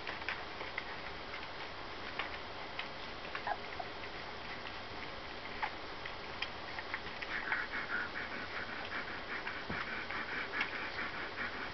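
Borzoi puppies suckling from their mother: scattered small wet clicks and smacks, turning into a faster, busier run of clicking from about seven seconds in.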